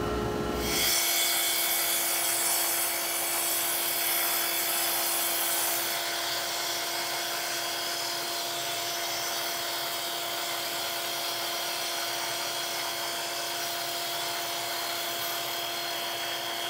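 Sliding miter saw's motor running steadily with its blade spinning: a steady whine with an airy hiss, not cutting into the wood. A lower machine rumble cuts off under a second in.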